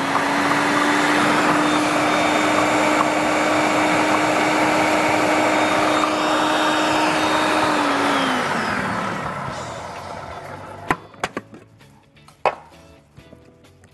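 Electric food processor motor running steadily, puréeing boiled beetroot, then switched off at about eight seconds and spinning down with a falling whine. A few sharp knocks follow near the end.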